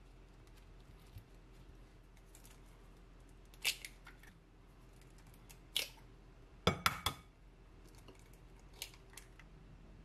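Raw eggs being cracked open by hand, one after another: a few sharp shell cracks a couple of seconds apart, the loudest a cluster of cracks with a dull knock about two-thirds of the way through.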